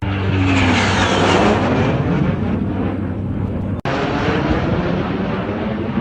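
Jet aircraft flying past overhead: a loud rushing engine noise whose pitch falls as it goes by. The sound drops out for an instant about four seconds in, then the jet noise carries on.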